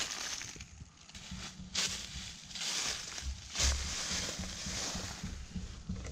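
Crunching footsteps and rustling in dry fallen leaves, with the loudest crunches a little under two seconds in and again just under four seconds in.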